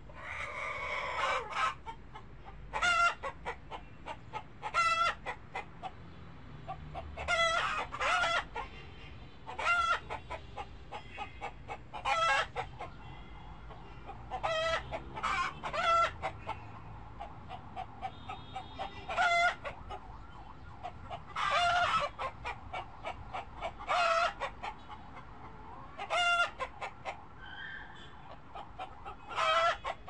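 Chickens clucking: short calls repeated every second or two, a few of them longer and drawn out.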